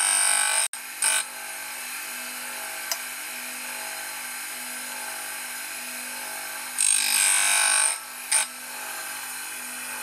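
Homemade tool and cutter grinder running steadily while its wheel regrinds the teeth of a rotabroach cutter, with louder grinding rasps as the wheel touches the steel: one lasting under a second at the start and a short touch just after, then another pass of about a second around seven seconds in and a brief touch after it.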